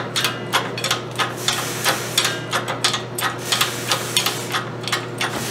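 Quick, irregular metallic clicks and knocks, several a second, from the jack and the Tesla drive unit as they are worked into position under the car. A steady low hum runs underneath.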